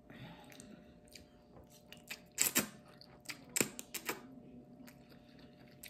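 Close-miked eating of noodles: quiet chewing with a scattering of sharp wet mouth clicks and smacks, the loudest between about two and four seconds in.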